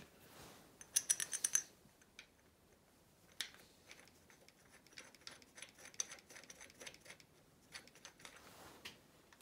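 Cast aluminium thermostat housing being fitted by hand over the mounting studs onto the thermostat and gasket, metal clinking on metal. A quick rattle of sharp clicks comes about a second in, then scattered light taps as it is seated.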